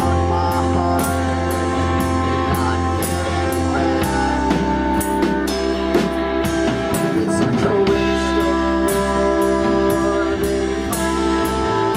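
Live rock band playing an instrumental passage: drum kit keeping a steady beat with cymbal hits about twice a second, over electric guitar and bass, the bass note changing about every four seconds.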